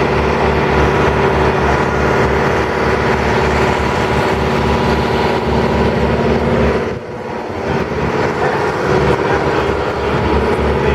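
A vehicle engine running steadily on the move, with a low pulsing hum over a haze of road noise; the sound eases off briefly about seven seconds in.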